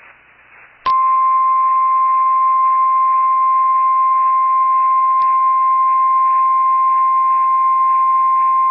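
NOAA Weather Radio 1050 Hz warning alarm tone: a single steady high tone that starts abruptly about a second in over faint radio static. It signals that an emergency message follows, here a severe thunderstorm warning.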